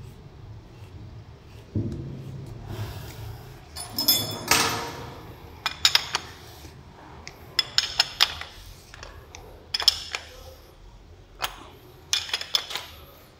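A steel ring spanner clinks and clicks against the metal cap of a pneumatic rivet nut gun's cylinder as it is fitted and turned by hand. There is handling and scraping about four seconds in, then irregular clusters of sharp metallic clicks.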